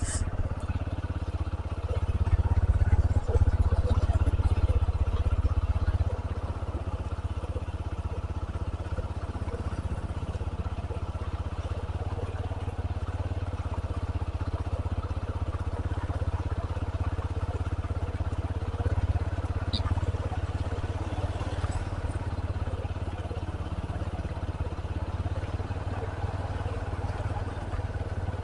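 Wind rumbling on the microphone of a moving motorcycle, with the engine running underneath; a little louder for a few seconds near the start.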